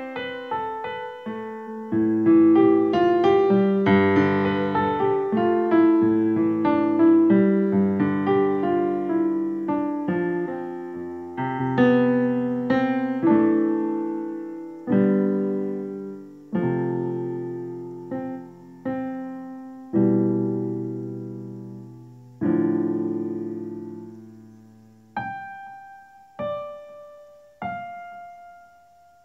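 Solo piano instrumental played on a sampled Steinway grand piano: a melody over struck chords, each dying away. Near the end it thins to single notes, a second or so apart, left to ring.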